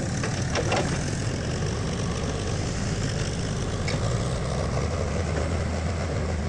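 Tractor engine running steadily, with a couple of faint clicks in the first second.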